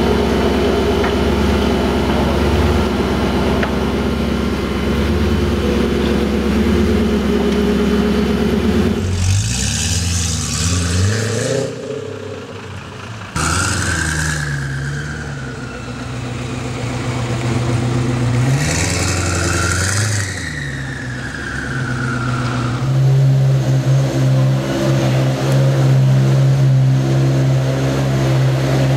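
Koenigsegg V8 supercar engines running: a steady idle, then several revs that climb and fall back, and a loud steady idle near the end.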